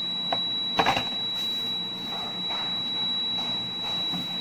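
Handling noise from unpacking a hair clipper: two sharp clicks about a third of a second and a second in, then light rustling of plastic wrap and a charger cord, over a steady high-pitched whine.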